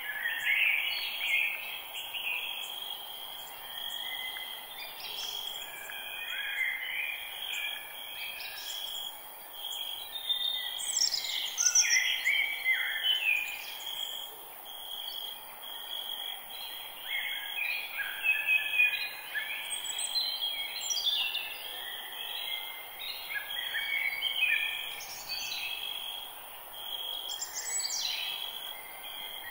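Forest ambience: several birds singing in short chirping, sweeping phrases, over a steady high insect trill.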